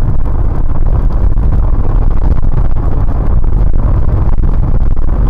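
Steady low rumble of a car driving at speed, engine and tyre noise heard through a dashcam's microphone inside the car.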